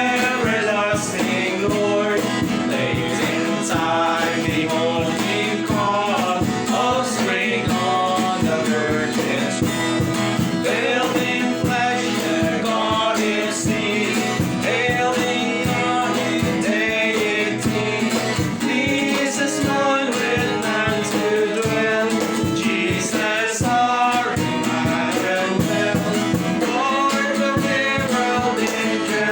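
A song: singing with instrumental accompaniment, running continuously.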